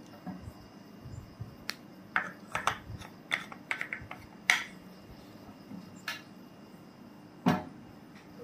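Bottles and plastic cups being handled on a table: a run of short clicks and knocks, then a heavier knock near the end as something is set down.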